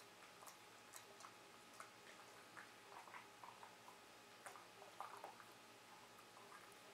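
Beagle mouthing and chewing a Dentastix dental chew: faint, irregular wet clicks and small crunches, busiest about three to five seconds in.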